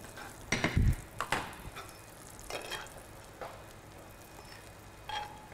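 A utensil scraping and clinking against a frying pan and a ceramic plate as sautéed vegetables are lifted out of the pan onto the plate. There are a few short clatters: the loudest, with a thump, comes about half a second to a second in, and a brief ring comes near the end.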